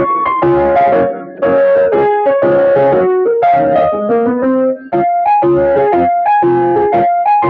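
Piano or electric-piano music: a melody of short notes over chords, with two brief breaks, one about a second and a half in and one near five seconds.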